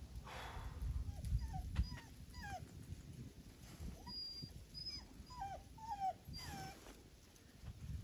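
A dog whimpering in a series of short high whines, some falling and some rising in pitch, with a low rumble underneath.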